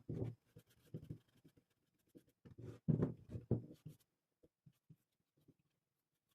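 Hand work on wood: irregular scraping and rubbing strokes with small knocks, in two busy spells separated by pauses, then only a few light ticks.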